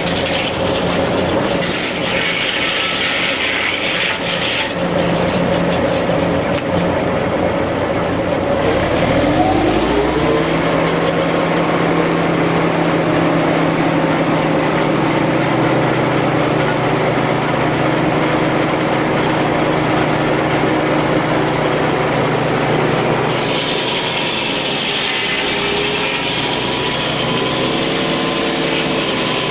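Tractor-PTO-driven sawmill running: the tractor engine and saw drive hum steadily, with the blade cutting through a log early on and again near the end. The machinery's pitch rises briefly about ten seconds in.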